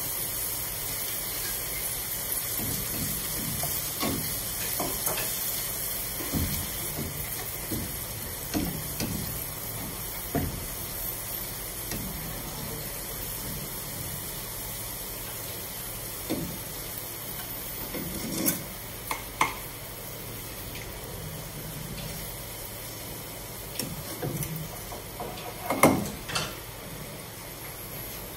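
Sliced shallots sizzling in hot oil in a wok with the flame off, stirred and scraped with a wooden spatula. In the second half come a few sharper knocks of the spatula against the wok and a metal bowl as the fried shallots are lifted out.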